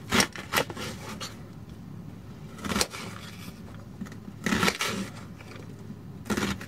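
Small paring knife slicing through a raw onion and hitting the plate beneath: a few crisp cuts with short scrapes, spaced irregularly, over a faint steady low hum.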